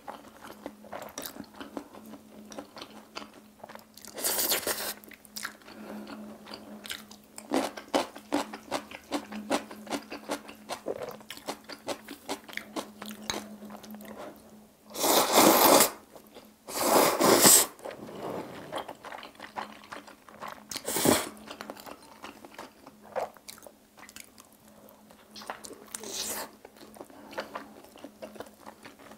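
Close-miked eating of jjajang noodles: steady wet chewing and mouth clicks, broken by several loud slurps of noodles about a second long, two of them close together around the middle.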